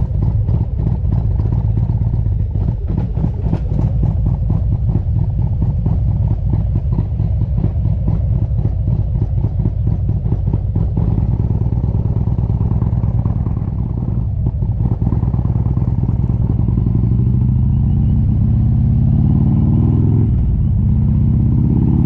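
Harley-Davidson V-twin motorcycle engine running as the bike is ridden slowly, with a rough, pulsing exhaust beat, then accelerating over the last few seconds with the pitch climbing.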